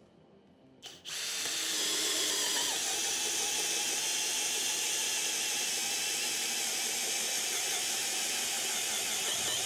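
Worx WU377 cordless hammer drill boring a 40 mm hole in wood with an auger bit. The motor starts about a second in and runs steadily under load, its pitch dipping slightly as the bit bites in, and it keeps its speed without bogging down.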